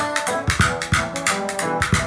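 Background music with a steady drum beat and plucked guitar notes.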